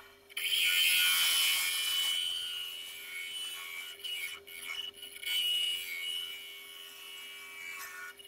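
Half-inch bowl gouge taking light finishing cuts inside a spinning ash bowl on a wood lathe: a hissing, shearing rush of the cut, loudest for the first couple of seconds and then easing, over a faint steady hum.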